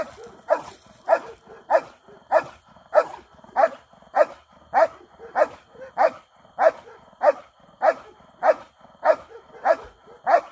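A German Shepherd barking steadily and rhythmically, about one bark every 0.6 seconds, at a helper's bite sleeve during protection training.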